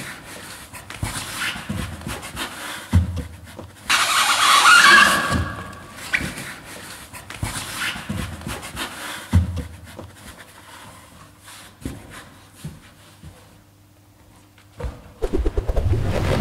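Large latex balloon squeaking and rubbing as it is squeezed in a hug, loudest about four to five seconds in, with a few dull thumps. A short music jingle starts near the end.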